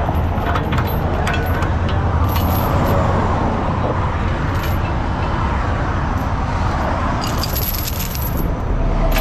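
A truck engine idling steadily, with scattered light metallic clinks from the tow chains and underlift hardware.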